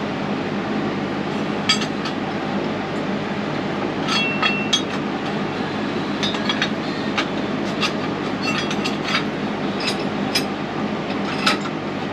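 Irregular sharp metallic clinks and taps on welded steel test pieces, a dozen or so spread unevenly, a few ringing briefly, as the joint is worked to break it apart. A steady fan hum runs underneath.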